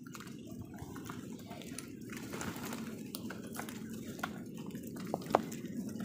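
House crows pecking at food in a plastic bowl: scattered light taps and clicks of beaks, with a sharper tap about five seconds in, over a steady low background rumble.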